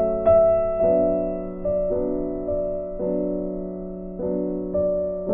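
Background piano music: slow notes struck every half second or so, each fading, over a held low note.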